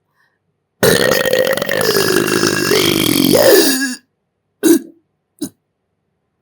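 A person's long, loud burp close to the microphone, lasting about three seconds, its pitch sinking and then jumping up briefly just before it ends. Two short sounds follow about a second later.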